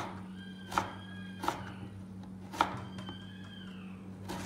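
Five sharp, separate knocks over about four seconds. Between them come two faint, drawn-out high tones, each about a second long and dipping at the end, over a steady low hum.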